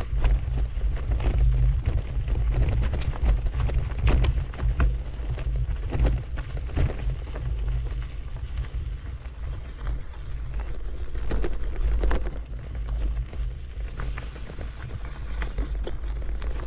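Wind buffeting the microphone on a moving bicycle as a heavy low rumble, with irregular crackles and knocks throughout and a hiss joining in about fourteen seconds in.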